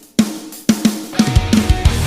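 Rock music with a drum kit: separate heavy drum hits, then the full band with bass and guitar kicks in partway through with a fast, steady beat.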